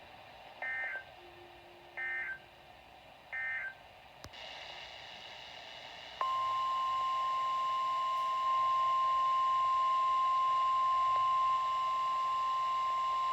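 Three short bursts of EAS digital end-of-message code, about 1.4 seconds apart. A click and background hiss follow, and about six seconds in NOAA Weather Radio's single-pitch warning alarm tone starts and holds steady, announcing the next severe thunderstorm warning.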